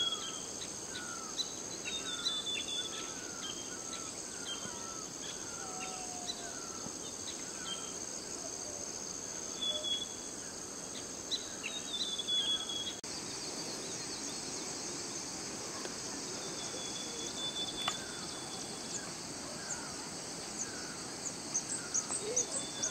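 Rural outdoor ambience: a steady high-pitched drone of insects, with scattered short chirps and whistled calls of small birds.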